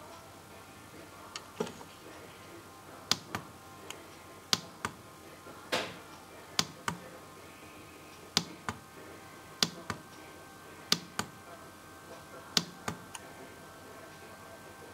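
Plastic push-buttons on a PWM solar charge controller clicking as they are pressed and released, about ten presses, most heard as a quick pair of clicks, one every second or so.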